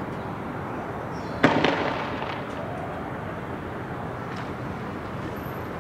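A single loud explosive bang about a second and a half in, echoing briefly, over a steady background hiss.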